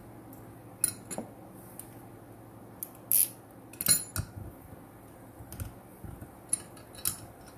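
Steel hand tools (a bolt, a socket and a 12 mm wrench) clinking and tapping against an aluminium LS cylinder head while being set up to press on a valve stem seal: a string of short, sharp metallic clinks, the loudest about three and four seconds in.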